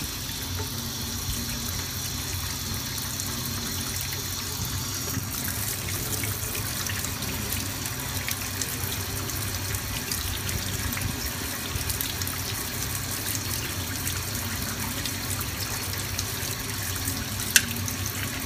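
Cold tap water splashing steadily onto a stainless-steel pressure cooker's lid in a steel sink, cooling it to release the pressure. The splashing grows louder about five seconds in. Near the end comes a single sharp click as the red pressure-indicator pin drops, a sign that the pressure is gone.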